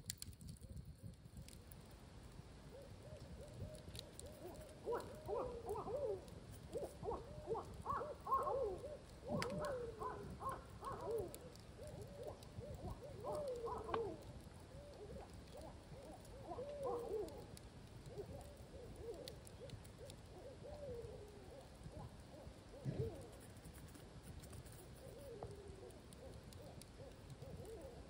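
Hooting animal calls, many in quick succession and overlapping through the first half, then fewer and farther apart. A steady low noise runs underneath.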